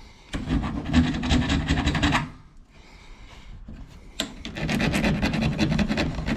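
Small hand file rasped back and forth against a brass fitting on a copper tube, in two quick spells of scraping strokes with a pause between, filing through to bare metal to tell brass from copper.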